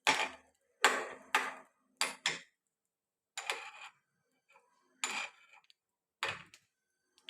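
Kitchen utensils knocking against pots and dishes: about eight sharp knocks at uneven intervals, each with a short ring.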